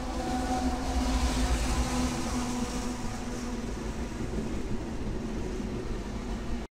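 Diesel locomotives passing close by: a steady engine drone with several held tones over a low rumble and the hiss of wheels on rail. The sound cuts off abruptly near the end.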